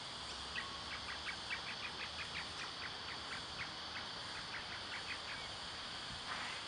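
A bird calling in a quick series of short, high chirps, about four or five a second, that stops about five and a half seconds in, then one more short call near the end. Over a steady high background hiss of outdoor ambience.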